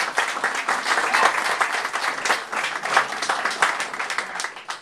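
A roomful of people applauding, dense clapping that thins out near the end.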